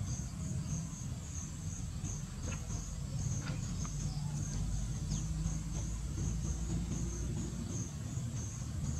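Crickets chirping in a steady run of short, high pulses, about two to three a second, over a low rumble.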